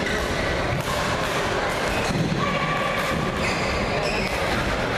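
Busy badminton hall ambience: background chatter with several sharp knocks from play in the hall.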